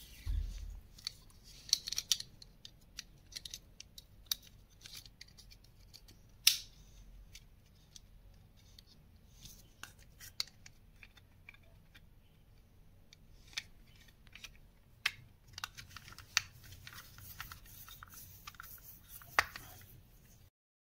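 Plastic case and circuit board of an Auditech pocket hearing aid being handled and fitted back together: scattered small clicks, taps and scrapes of plastic, with sharper snaps about six and a half seconds in and near the end.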